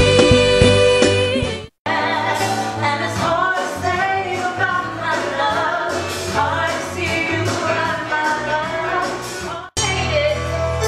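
Musical-theatre performance: women singing with a band. A held sung note cuts off abruptly about two seconds in, giving way to several women's voices over the backing music, and near the end another abrupt cut leads into instrumental music with drums.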